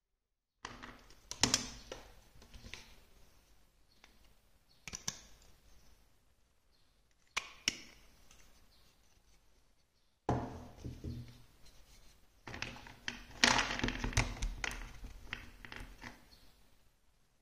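Large plastic building bricks and marble-run track pieces being handled and pressed together: irregular hard-plastic clicks, knocks and rattles, busiest and loudest in the last third.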